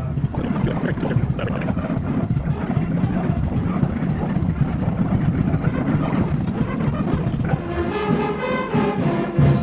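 Loud music from a passing street parade, with drumming.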